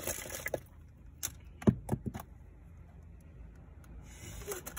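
Small toys and packaging being handled: rustling, then a few sharp clicks and knocks about a second and a half to two seconds in, the loudest a dull knock.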